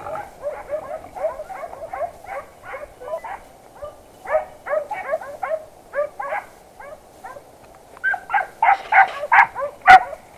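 Hunting dogs barking in quick repeated series, growing louder near the end, with one sharp crack just before the end.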